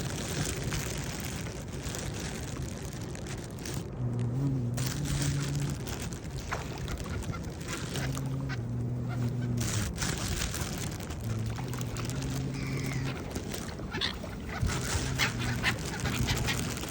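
Birds calling as they wait to be fed, over a steady outdoor background, with several drawn-out low calls and a cluster of short, sharper calls near the end.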